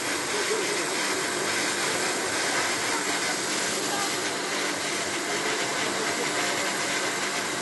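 Snow cannon making artificial snow: a steady hissing rush of spray with a constant machine hum under it.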